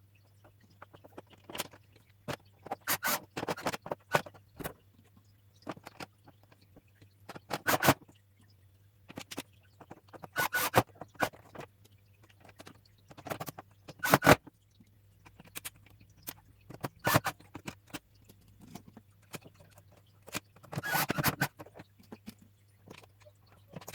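Plastic aquarium light-hood casing being put back together by hand: irregular clicks, knocks and scrapes in short clusters as the parts are fitted and its screws are driven back in.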